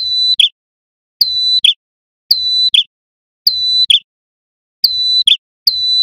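Male ashy tailorbird singing its loud repeated call, six times, about once a second. Each call is a short, steady, high whistle that ends in a quick lower note.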